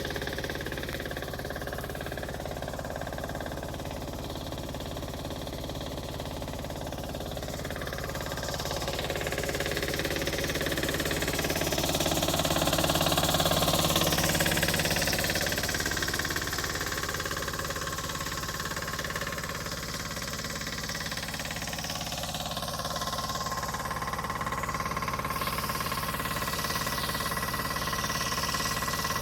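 Campagnola 650 diesel motor-compressor running steadily. It gets louder for a few seconds around the middle, then settles back.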